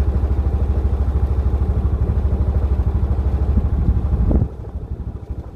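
A motor engine running steadily with an even, low, pulsing throb. About four and a half seconds in it suddenly drops to a quieter level.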